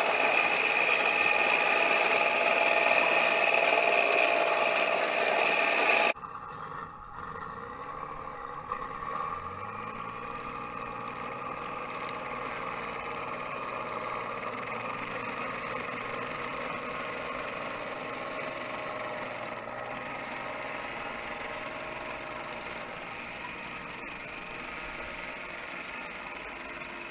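Radio-controlled model Chieftain tank driving along a tarmac road, its drive running steadily with a high whine up close. About six seconds in the sound drops suddenly and carries on quieter and more distant.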